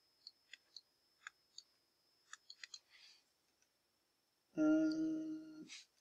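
Light plastic taps of a stylus on a tablet screen while handwriting an equation, a dozen or so scattered ticks over the first three seconds. This is followed near the end by a steady hum lasting about a second, the loudest sound.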